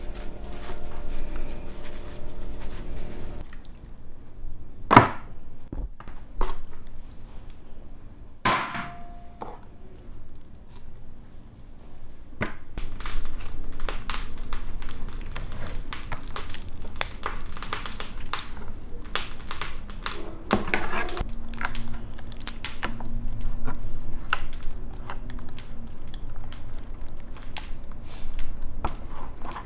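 Kitchen handling sounds: a plastic bag crinkling as a skinned raw nutria carcass is unwrapped, then scattered clicks and knocks as the carcass is worked on a wooden board and long metal skewers are pushed through it. There are two sharp clicks early on, then the clicks come thick and fast through the second half.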